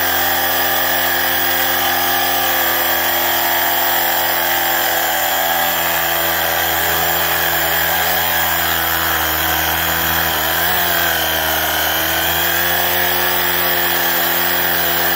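Redcat Lightning STK RC car's electric motor and drivetrain whining at full throttle while its tyres spin in place against asphalt in a burnout. A steady high whine whose pitch sags and wavers briefly about ten to twelve seconds in, then stops abruptly at the end.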